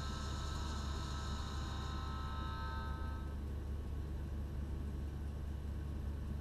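Cab of a standing Z 6400 electric multiple unit: the train's electrical equipment gives a steady low hum, and a high whine of a few steady tones dies away about three seconds in.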